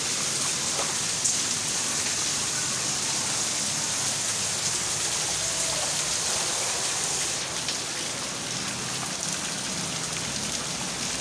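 Rain falling steadily onto a flooded yard and wet paving, a constant even hiss.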